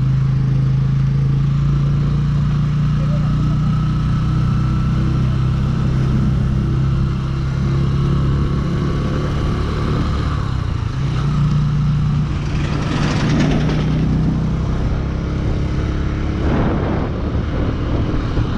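Motorcycle engine running steadily while riding, heard on board the bike. The engine note breaks briefly about ten seconds in, then carries on. Two louder rushes of noise come at about thirteen and sixteen seconds in.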